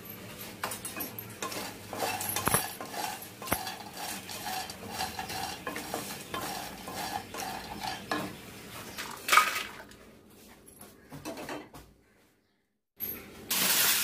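Star anise pods being stirred with a wooden spatula in a non-stick pan while they dry-roast in a little oil: irregular rattling and scraping of the dry pods against the pan, with one sharper knock about nine seconds in. Near the end the sound cuts out for about a second, then a louder rush of dry cumin seeds poured onto a steel plate.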